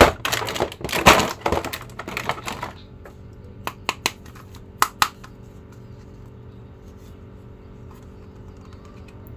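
Clear plastic packaging tray crackling and plastic action figures clattering as a figure is pulled out of it, a busy run of noises over the first three seconds, then a few sharp plastic clicks around four to five seconds in. After that only a faint steady hum.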